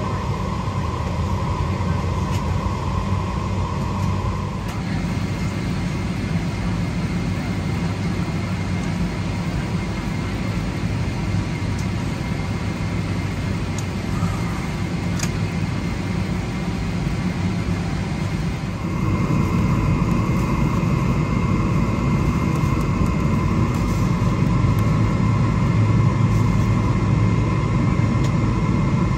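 Boeing 777-300ER's jet engines heard from inside the cabin as the airliner taxis: a steady low hum with a constant whine on top. The sound shifts abruptly twice, about four seconds in and again after about nineteen seconds, and is louder over the last part.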